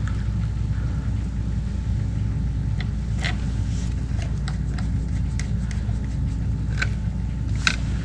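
Steady low hum of workshop background noise, with a few light clicks and taps of small model parts being handled on the bench.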